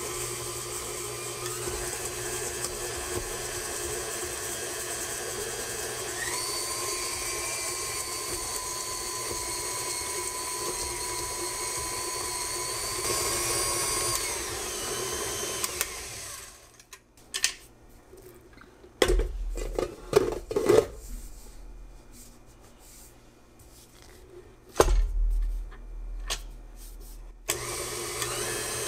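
KitchenAid Classic Plus tilt-head stand mixer running steadily with its flat beater, creaming shortening and sugars; the motor's tone steps up in pitch as the speed is raised about six seconds in. About two-thirds through the motor stops, a few knocks and thumps follow, and the motor starts again near the end.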